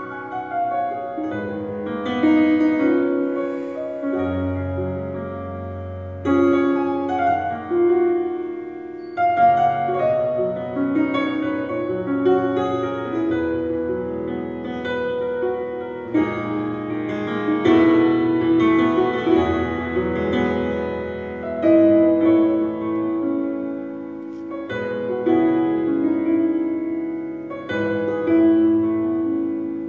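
Solo grand piano played live: flowing chords and melody, in phrases that swell and fall back every few seconds.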